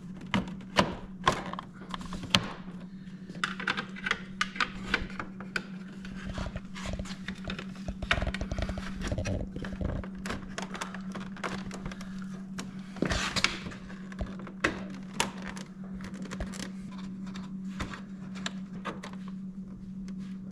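Plastic and chrome fairing trim pieces of a Honda GL1500 Gold Wing being handled and pressed into place, giving scattered clicks, taps and knocks, a few sharper ones in the first couple of seconds. A steady low hum runs underneath.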